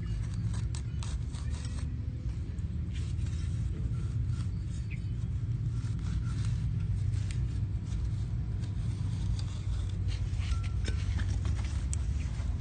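Steady low engine rumble, with scattered clicks and a few brief, high chirps over it.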